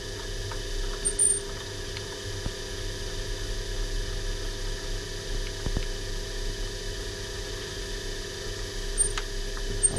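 Small milling machine running steadily with an edge finder spinning in the spindle: a constant hum, with a few faint clicks as the table is wound across to the other side of the workpiece.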